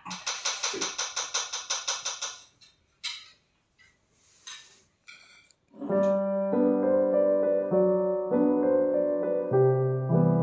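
A quick, even run of hand claps, about five a second, for roughly two and a half seconds. After a few faint scattered sounds, solo piano background music starts about six seconds in.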